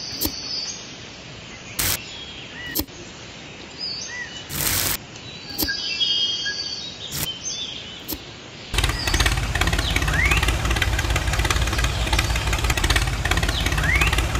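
Birds chirping with a few short sharp clicks, then about nine seconds in a steady low engine-like running sound of a mini model tractor starts suddenly and keeps going.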